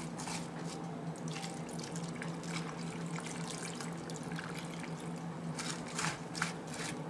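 Milk pouring from a measuring cup onto chopped vegetables in a crock pot: a steady trickle with small splashes and patters.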